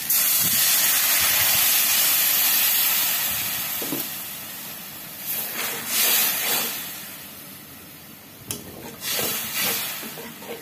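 Water splashed into a wok of hot oil, fried onions and ground spices hisses and sizzles in a sudden burst of steam that fades over several seconds as the masala is cooked down (kashano). A metal spatula scrapes and stirs the wet masala against the wok in the second half.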